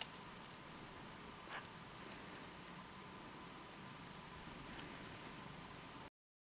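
Small songbirds giving short, high, thin calls, many in quick succession. The sound cuts off abruptly near the end.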